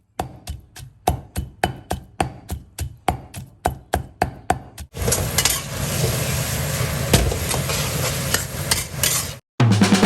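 Sharp knocks in a steady rhythm, about four a second, typical of chopping or pounding ingredients for a stir-fry. About halfway through, food in a hot pan takes over, sizzling loudly with scattered crackles, and stops just before the end.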